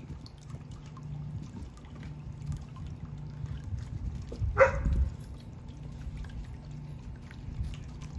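Water sloshing and trickling as a dog pushes its face into a plastic kiddie pool, with one brief, louder sharp noise about halfway through.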